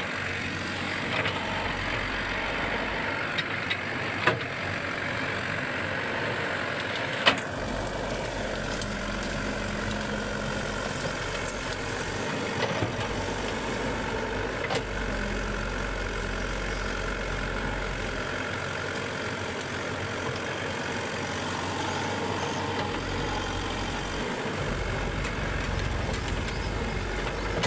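Excavator's diesel engine running steadily, with a few sharp knocks, the loudest about seven seconds in.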